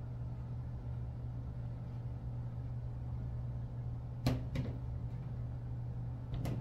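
A steady low hum, broken by two light knocks about four seconds in and another just before the end.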